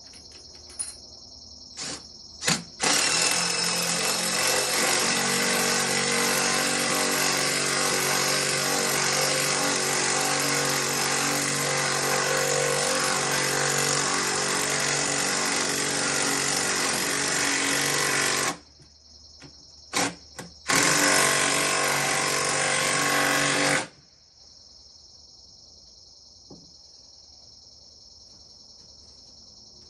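A 3/8-inch impact driver runs steadily for about fifteen seconds while driving a log dog tight. It stops, gives a couple of short blips, and then runs again for about three seconds. Crickets chirp in a steady high band behind it.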